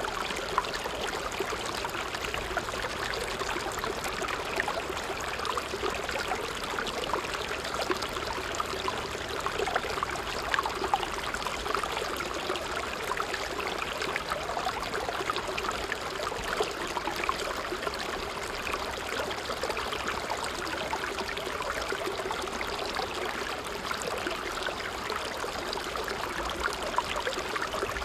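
Shallow stream flowing steadily over rocks: a constant rush of water full of small splashes and trickles.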